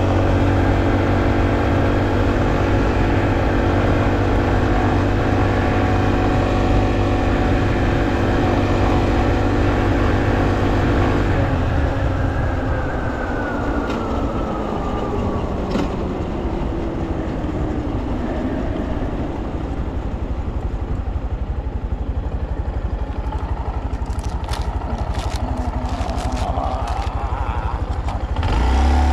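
Honda Monkey's 125 cc single-cylinder four-stroke engine running steadily at cruising speed. About twelve seconds in the rider eases off, and the engine note falls in pitch as the bike slows. It picks up again near the end.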